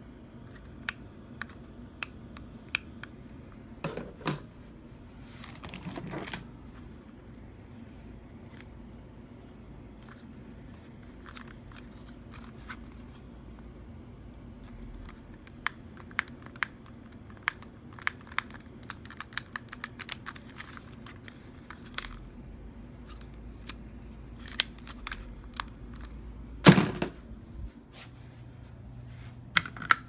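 Plastic garage door remote controls being handled: scattered sharp plastic clicks and rubbing, with a louder knock and rustle near the end.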